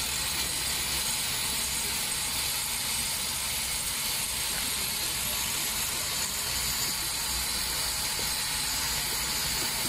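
Steady construction machine noise with a hissing edge and a low rumble underneath, without pause, on a concrete-chipping job.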